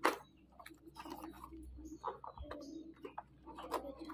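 Cardboard box being opened by hand: packing tape picked at and a flap lifted, making scattered small crackles and clicks, with one sharp click at the start.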